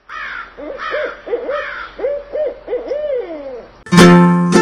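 Owl hooting: a run of short hoots, the last one longer and sliding down in pitch. About four seconds in, loud plucked-string music like a ukulele cuts in.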